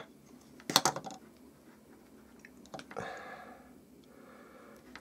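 Sharp clicks and knocks as a folding utility knife is picked up and handled, loudest about a second in, then a short scrape near the middle as the blade starts into the rubber insulation of a multimeter test lead.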